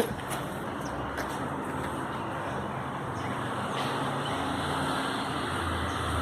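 A motor vehicle's engine running in the street as a steady noise with a low hum, growing slightly louder in the second half.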